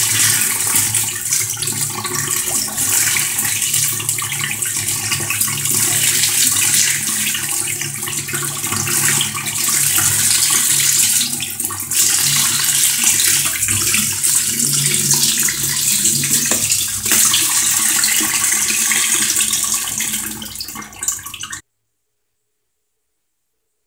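Kitchen tap running onto green lentils being rinsed and rubbed by hand in a plastic colander over a sink. The water noise cuts off suddenly near the end.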